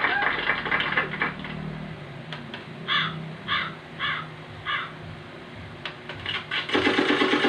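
Crow cawing sound effect played from a V8 live sound card: four caws about half a second apart. It is framed by a noisy burst at the start and a loud buzzy, rattling effect near the end.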